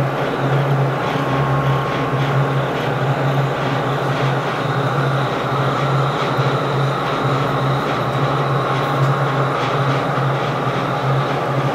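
A steady, loud mechanical rumble with a low hum that pulses on and off about once a second.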